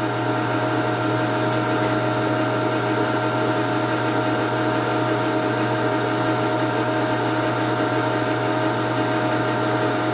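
Metal lathe running steadily on slow power feed, a steady hum with a few held tones, as the tool takes a light facing cut across the muzzle of a Winchester 1886 rifle barrel to square its crooked crown.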